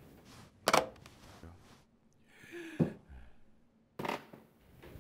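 A few separate sharp clicks and knocks. The loudest comes just under a second in, another near three seconds, and a fainter one at about four seconds.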